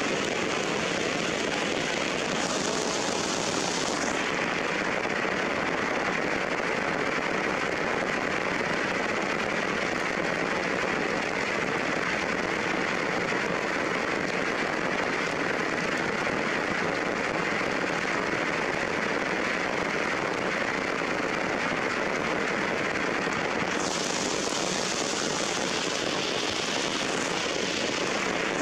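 Steady heavy rain pattering on leaves and rocks, an even hiss that grows brighter for a moment about two seconds in and again near the end.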